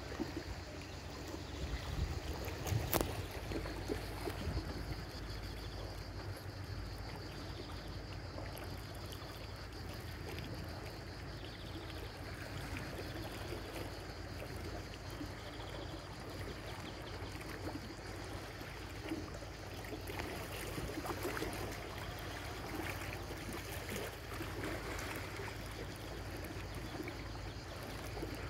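Water splashing and lapping with an irregular fine crackle over a steady low rumble. A few sharper knocks or splashes come about two to three seconds in.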